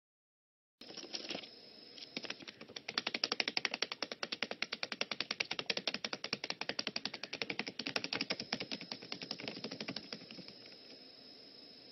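Lovebird pecking and tearing at paper: a fast run of dry clicks, about ten a second, that starts after a moment of silence and fades out near the end.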